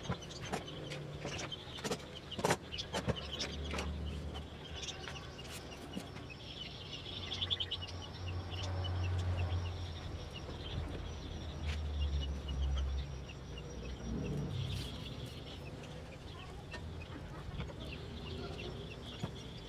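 Sharp clicks and taps of thin plywood pieces and a glue bottle handled on a wooden workbench, mostly in the first few seconds, over birds chirping and a low rumble that fades out about two-thirds of the way through.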